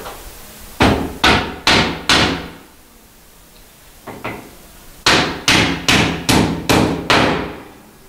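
Hammer nailing together the wooden boards of a box: four quick strikes about half a second apart, a single lighter tap, then six more strikes at the same pace.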